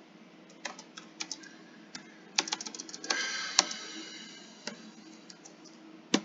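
Keys being typed on a computer keyboard: separate keystrokes with gaps, then a quick run of keys about two and a half seconds in. A brief ringing tone sounds over the keys just after that and fades out.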